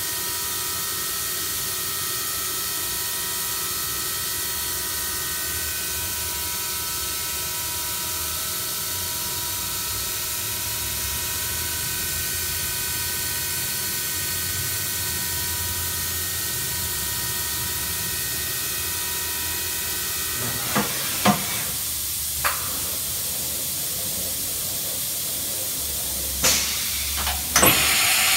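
Chevalier QP2033-L CNC vertical machining center running a program: a steady hiss with a whine of several steady tones, which stops about two-thirds of the way through. A few sharp clicks and knocks follow, and a louder hiss starts just before the end.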